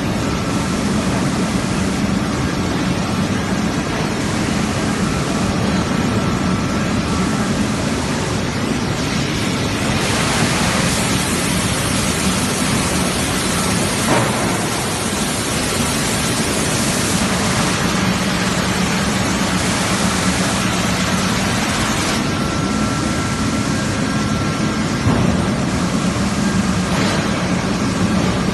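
Steady industrial din of a hot-rolling steel mill line, with red-hot steel running on the roller tables. A low machinery hum and an on-and-off high whine sit under a broad hiss, which swells for several seconds in the middle. A single knock comes about halfway through.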